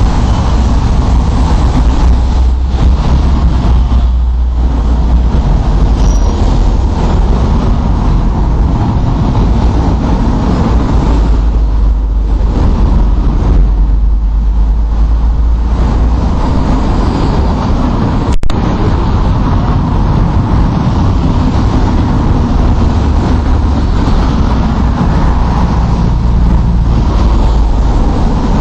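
Loud, steady low rumble of vehicle or engine-type noise, with one sharp click about two-thirds of the way through.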